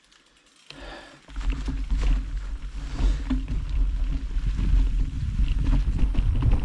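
Quiet for about a second, then wind buffeting the camera's microphone and a mountain bike rattling over a rough trail as it starts rolling again: a loud, steady low rumble with many short clicks.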